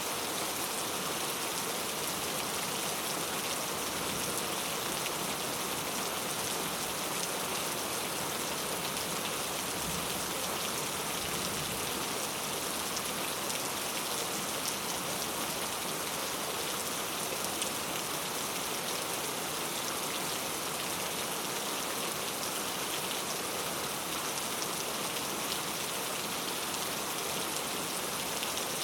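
Heavy rain falling steadily on a camping tent, a dense, even hiss of drops with no break.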